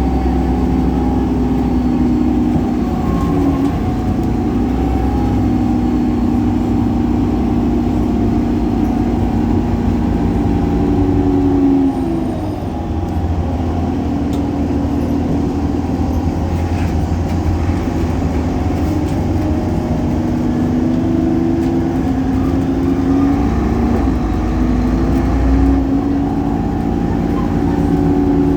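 Solaris Urbino 18 articulated bus with a DAF Paccar PR265 diesel and ZF Ecolife six-speed automatic, driving. The engine-and-drivetrain note climbs slowly in pitch and drops back at each gear change, several times over, with the loud belt noise this DAF engine is known for.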